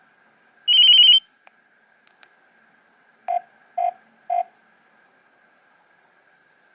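Nokia 3100 mobile phone playing a short built-in tone through its speaker: a quick, loud, high-pitched warbling trill, then three short lower beeps about half a second apart.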